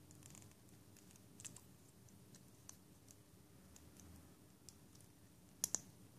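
Small plastic building-brick pieces clicking faintly as they are handled and pressed together, with two sharp snaps in quick succession near the end.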